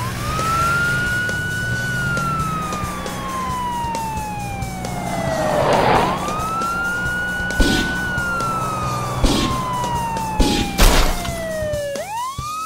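Police car siren wailing: it rises quickly, holds, then falls slowly, one cycle about every six seconds, with a new rise starting near the end. A low steady hum runs underneath, and a few short sharp noises come in the second half.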